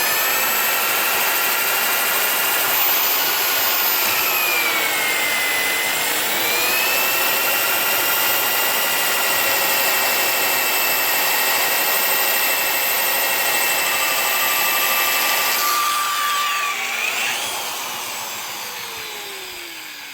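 Electric drill with a 3/8-inch bit running at full speed while boring into a wooden log, its motor whine sagging in pitch under load a few seconds in, then winding down and fading near the end.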